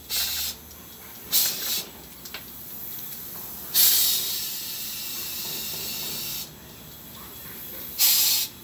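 Electrostatic powder-coating gun spraying in short bursts, its compressed air hissing as powder is blown onto small metal parts. Four bursts: two short ones, a longer one of about two and a half seconds, and a short one near the end.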